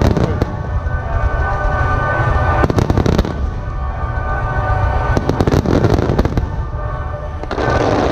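Aerial firework shells bursting in four rapid volleys of bangs and crackles, with music playing underneath.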